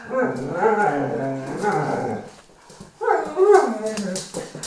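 A dog making two long, wavering whining howls during rough play with a cat, the second starting about half a second after the first ends.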